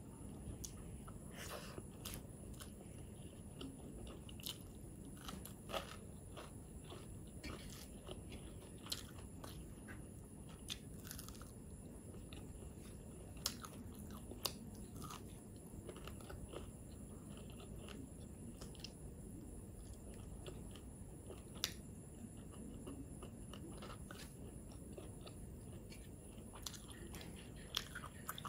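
A person eating rice and chicken gravy by hand, close-miked: chewing, with sharp clicks and crunches now and then.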